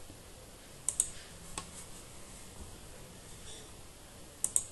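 Computer mouse button clicking a few times: a pair of clicks about a second in, a single click shortly after, and a quick cluster of clicks near the end.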